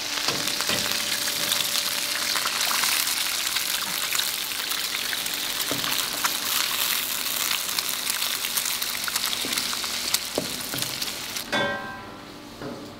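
Eggs frying in hot oil in a wok with squid and garlic: a steady sizzle peppered with small crackles, with a metal spatula stirring. About eleven and a half seconds in there is a short pitched sound, and then the sizzle falls away.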